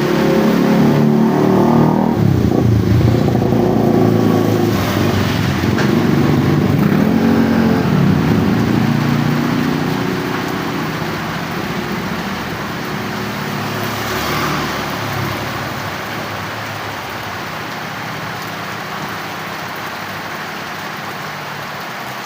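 Heavy rain falling as a steady hiss, with a motor vehicle's engine running loud close by for the first half, which fades away about ten seconds in and leaves only the rain.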